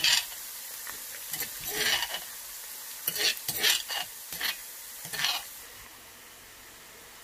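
Pounded garlic frying in a lot of oil, sizzling while it is stirred, with about eight short scrapes of a utensil against the pan. The sizzle becomes quieter about two-thirds of the way through. This is the garlic being cooked into garlic oil on its way to golden brown.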